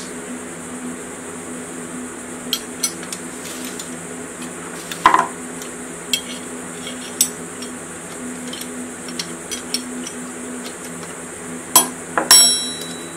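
Steel hand tools clinking against a Mini flywheel puller as a wrench works the puller's bolts: scattered light clicks, a louder ringing clink about five seconds in and two more sharp clinks near the end, over a steady background hum.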